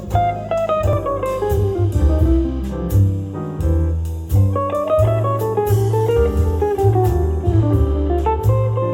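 Instrumental music played back through a portable Bluetooth speaker: a plucked guitar melody running down and back up in quick notes over a heavy bass line and light drums.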